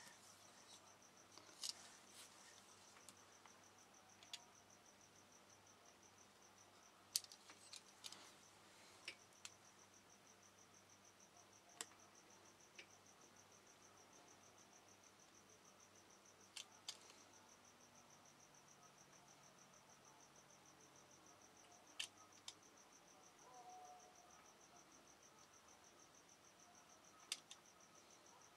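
Sharp little ticks of a craft knife cutting a decal sheet on a board, a handful spaced a few seconds apart. Behind them runs a faint, high, rapidly pulsing insect-like chirp, which pauses briefly after about six seconds.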